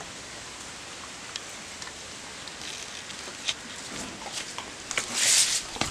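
A pit bull mouthing and carrying a bone, with a few light clicks from its metal chain on the tiled floor and a short rustling burst about five seconds in.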